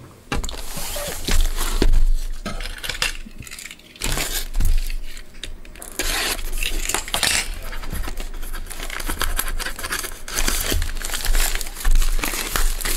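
Plastic shrink wrap crinkling and tearing as it is stripped off a sealed trading-card hobby box, with cardboard rustling and tapping as the box is handled and its flap opened near the end.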